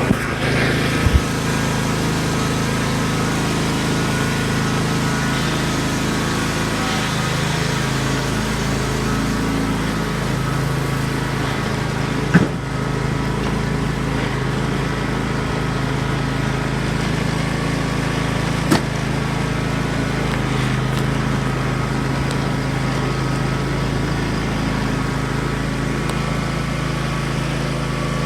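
Riding lawnmower engine running steadily just after being started, with a few short knocks, the loudest about twelve seconds in.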